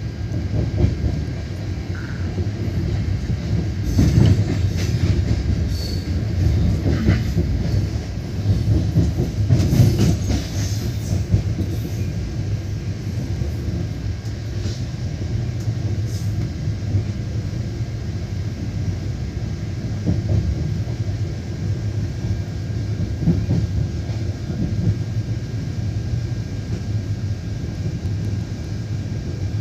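Passenger train coach running over the rails: a steady wheel rumble, with a cluster of clicks and clanks from about 4 to 11 seconds in as the wheels cross the yard's points and rail joints, and a few short high squeaks.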